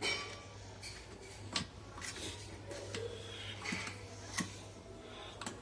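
Hand tools working on the metal parts of an air compressor during piston removal: scattered sharp metal clicks and knocks a second or more apart, with small clatter in between, over a low steady hum.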